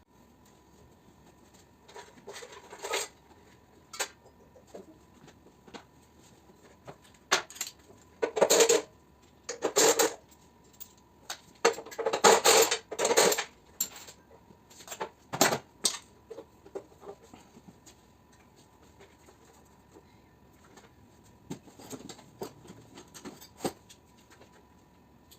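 Small metal parts of a mini-split air conditioner clinking and clattering in scattered bursts as the unit is taken apart for scrap.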